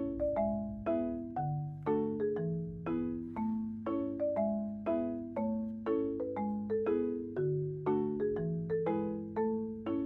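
Background music: a light tune of struck notes over chords, the notes sounding a few times a second and each ringing off quickly.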